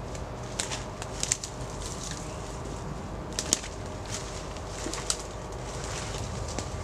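Footsteps through woodland undergrowth and leaf litter, with a handful of sharp snaps and crackles of twigs and brush, over a steady low background noise.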